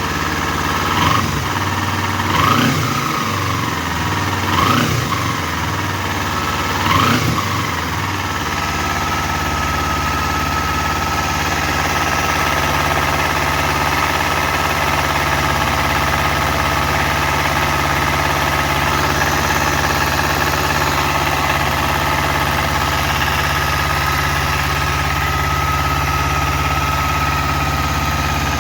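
Kawasaki Ninja 250 parallel-twin engine, freshly started. The throttle is blipped four times in the first several seconds, then the engine settles into a steady idle. The tec-tec cam chain rattle seems cured after the cam chain tensioner was reset.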